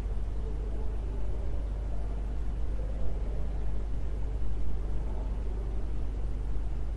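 Steady low hum with an even hiss over it, without change.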